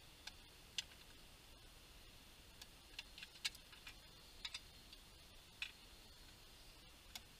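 Faint, scattered clicks and taps of a knife blade against a tin and a metal plate while slicing tinned meat, about a dozen sharp ticks, most of them bunched in the middle.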